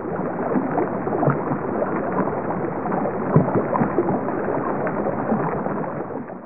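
Water rushing and splashing, a steady churning noise with many small irregular splashes, cutting off suddenly at the end.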